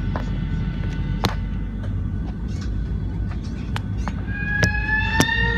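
Music from the inflight safety video playing through the airliner's cabin speakers over a steady low cabin hum, with sharp clicks scattered through it. About four seconds in, a chord of held tones comes in.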